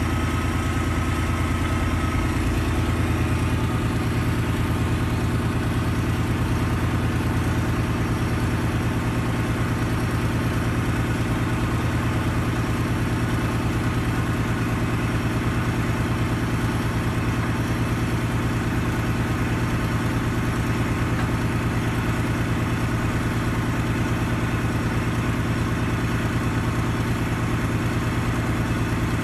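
Heavy diesel engine idling steadily at close range, with a constant low hum and a slight change in its lowest note about three seconds in.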